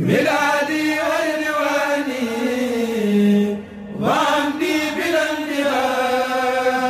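Kourel chanting a Mouride khassida (religious poem): voices holding long drawn-out phrases with sliding pitch. There is a brief breath break about three and a half seconds in, and then a new phrase swoops up.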